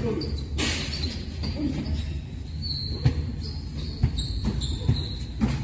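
Basketball pickup game in a large echoing hall: a basketball bouncing on the concrete court in a series of thumps, with short high sneaker squeaks and running footsteps.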